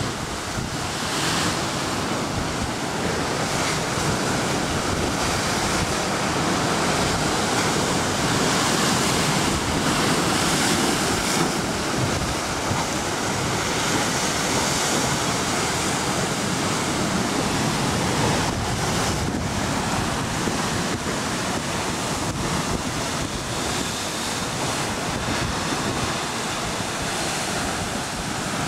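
Rough ocean surf surging and breaking steadily against a basalt rock shelf in a narrow inlet, a continuous churning rush of water with no single big crash standing out. Wind rumbles on the microphone underneath.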